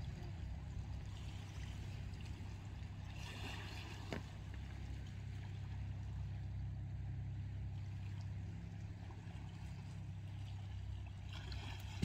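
Small waves lapping and washing in over shingle and rocks, swelling twice, with a steady low rumble underneath and a single small click.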